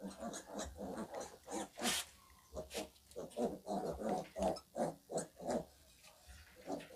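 Piglets grunting in quick, short bursts, with a sharp click about two seconds in.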